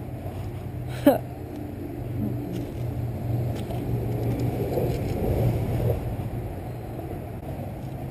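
Steady low rumble with the handling and rustling of a bass being unhooked by hand and a fishing rod being set down. A brief sharp squeak comes about a second in.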